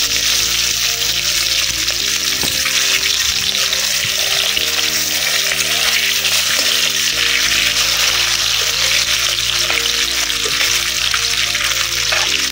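Pieces of katla fish, coated in turmeric, frying in hot oil in an iron kadai: a steady, loud sizzle.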